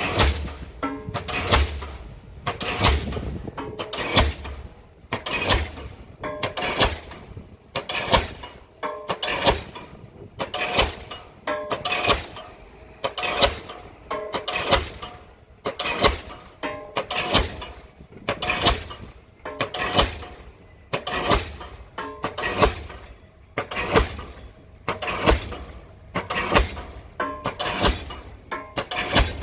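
Diesel pile hammer driving a pile: a steady run of heavy blows, about one every 1.3 seconds, each sharp strike followed by a short ring.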